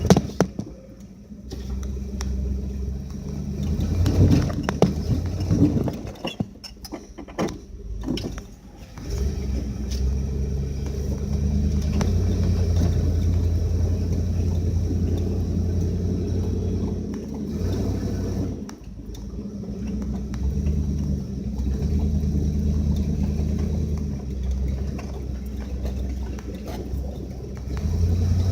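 A 1979 Ford F250's 351 Cleveland V8 running with a low, steady exhaust rumble through its Flowmaster 40 series muffler.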